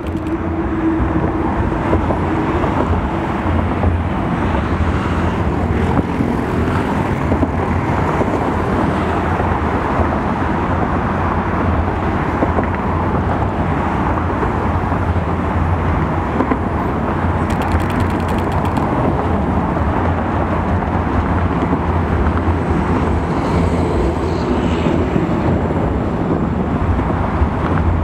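Steady outdoor city noise of distant road traffic, with a constant low rumble and a short run of faint clicks about two-thirds of the way through.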